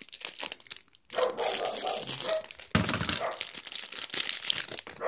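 Crinkly clear plastic bag being handled and pulled open around a small plastic toy: a dense, irregular crackling with a sharper crackle about two and a half seconds in.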